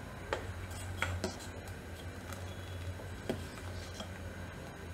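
Steel ladle stirring thick milk and custard apple pulp in a stainless steel pot, with a few short taps and scrapes of metal on metal against the pot's sides, over a low steady hum.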